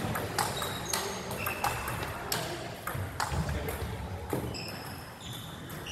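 Table tennis balls clicking off paddles and tables from several rallies at once: an irregular run of sharp ticks, some with a short high ring.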